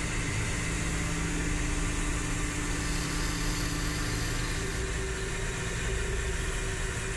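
Emco Maximat V13 manual metal lathe running, a steady mechanical hum and whir that holds even throughout.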